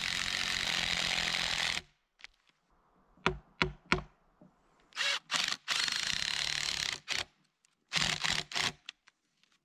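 Ryobi cordless impact driver driving screws through a steel mill plate into the end of a log. It runs in a burst of about two seconds, then a few short blips, a second run of about a second and a half, and a few more short bursts near the end.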